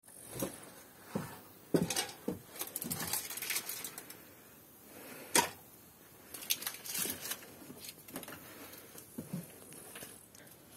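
Scattered light clicks and knocks of household activity, a busy run of them in the first few seconds and a sharp single click about five seconds in.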